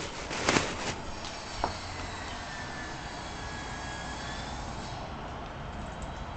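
Steady low outdoor rumble, like distant traffic. A short, loud clatter comes about half a second in, and a single sharp click follows about a second later.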